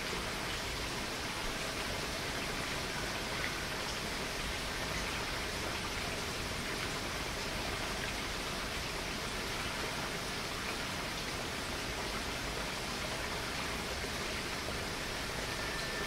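Waterfall rushing: a steady, unbroken wash of falling water.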